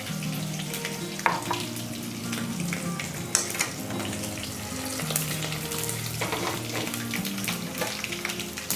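Mustard seeds, curry leaves and green chillies sizzling and crackling in hot oil in a pan, with scattered clicks as they are stirred.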